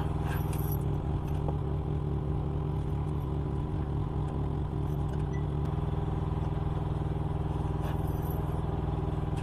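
Steady low mechanical hum made of several even, unchanging tones, with a few faint clicks from parts being handled.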